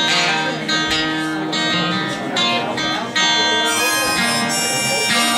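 Acoustic guitar strummed in a rhythmic chord pattern, played live as the instrumental opening of a song.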